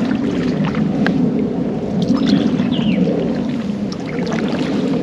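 Pedal-drive kayak moving through the water: a steady churning from the drive, with scattered light clicks and rustles.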